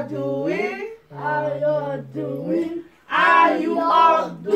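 Several voices, men, women and children, singing a short chant together without accompaniment, in three phrases with held notes.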